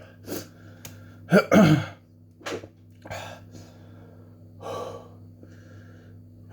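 A man breathing hard against the burn of a very hot chili sauce: a string of short gasps and heavy exhaled breaths, with the loudest, partly voiced gasps about one and a half seconds in.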